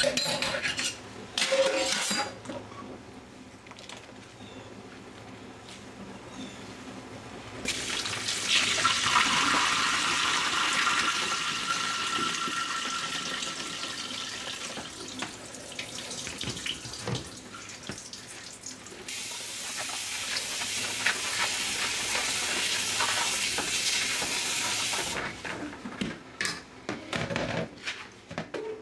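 Kitchen tap running into a sink: a steady stream that comes on about eight seconds in and is shut off a few seconds before the end. Knocks and clatter of handling come before and after it.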